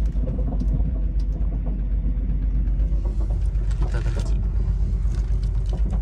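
Steady low rumble of the Caledonian Sleeper train, heard from inside a sleeper cabin, with a few light clicks and a short noise about four seconds in.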